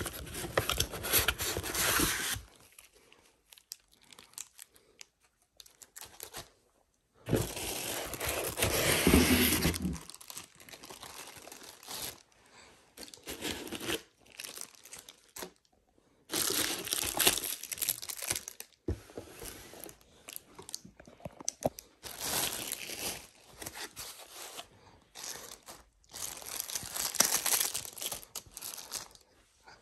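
Cardboard box and plastic packaging being handled during an unboxing: plastic bags crinkling and cardboard rubbing and rustling. It comes in about five bursts of a few seconds each, with quieter fumbling in between.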